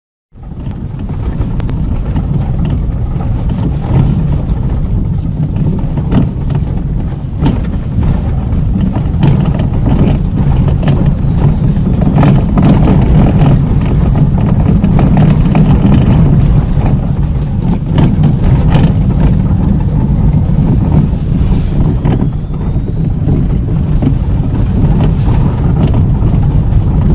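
A car's front end clicking and knocking at irregular moments over a steady low rumble of vehicle noise. It is an abnormal noise whose source has not been found, despite many parts having already been replaced.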